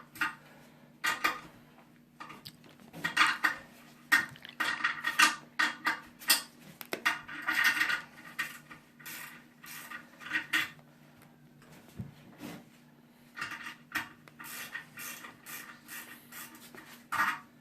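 Irregular clinks, knocks and scraping of porcelain and metal as a toilet tank's mounting bolts are worked against the bowl's bolt holes, with a faint steady hum underneath.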